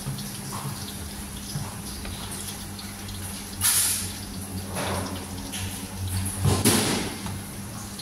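A pot of oyster mushroom soup boiling while a metal ladle stirs it, with sloshing and splashing of liquid. The louder splashes come about halfway through and near the end.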